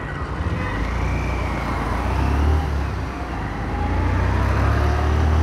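Motorcycle engine running at low speed while riding, over wind and road noise, with other traffic around. The engine drone grows louder about four seconds in.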